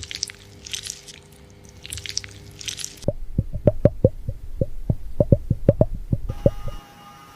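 Hair-wash scalp massage: fingertips scrub a lathered scalp in four short, squishy, crackling bursts. About three seconds in, this gives way to a fast run of about twenty dull pats, some five a second.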